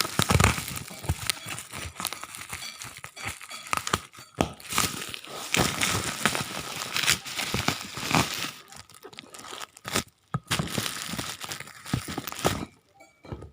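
Parcel packaging being crumpled and torn open by hand while unboxing a keyboard: a busy, irregular run of crinkling and ripping with sharp crackles, easing off briefly about ten seconds in and again near the end.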